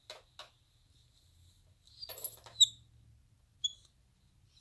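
Capuchin monkeys giving short high-pitched squeaks: a cluster about two seconds in with the loudest squeak near the middle, then two more brief squeaks near the end. Two soft clicks come just after the start.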